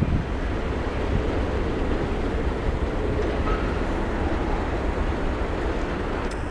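Freight train of tank cars rolling past on the rails, a steady noise of wheels and cars that holds even throughout.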